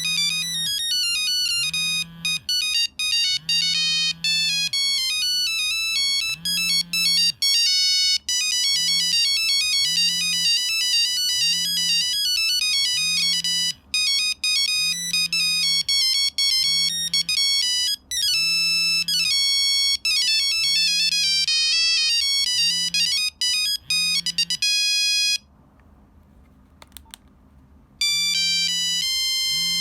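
Nokia 3395 mobile phone playing monophonic ringtones: quick beeping single-note melodies, with a few sliding notes. One tune stops about 25 seconds in, and after a pause of about two seconds another begins.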